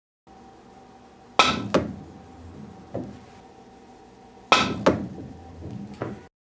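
Pool cue with a shortened composite tip (hard rubber base, leather core) striking the cue ball with a sharp click, twice about three seconds apart. Each hit is followed shortly by a second, lighter knock, and a fainter click comes between and after them.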